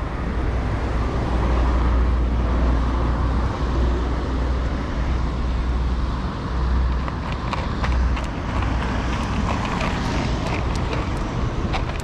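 Street traffic noise: a steady low rumble of road vehicles.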